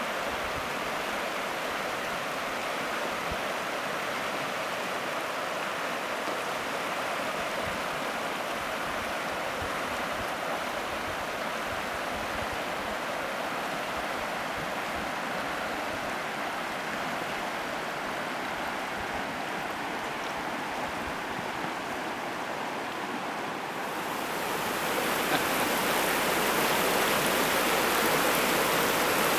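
Shallow mountain river rushing over a stony bed: a steady hiss of flowing water. About 24 seconds in, it changes to a louder, closer rush of water.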